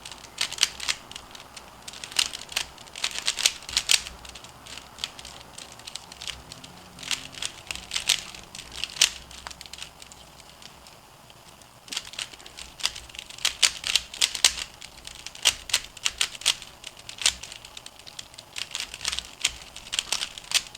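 3x3 Rubik's Cube being speed-solved by hand: rapid flurries of plastic clicking and clacking as the layers are turned, broken by short pauses between runs of moves.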